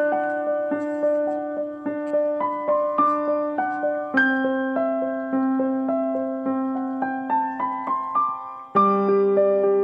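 Background piano music: a gentle, even run of single notes over held low notes, with the harmony changing about four seconds in and again near the end.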